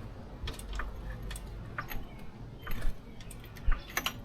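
Irregular light metallic clicks and taps of hands working with tools and parts at a motorcycle's rear wheel, with a couple of sharper clicks about three seconds in.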